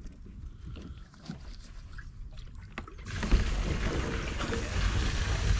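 Waste liquid gushing out of a portable toilet cassette into an Elsan chemical-toilet disposal point, starting suddenly about three seconds in and running on as a loud, steady rush; before that, only faint handling clicks as the cassette is tipped.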